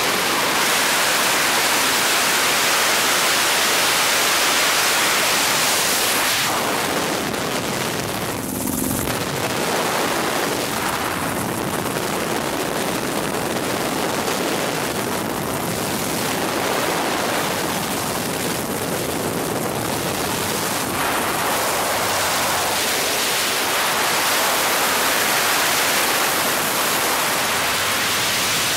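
Helicopter in flight heard from inside the cabin: engine, rotor and airflow noise blending into a steady, even rush.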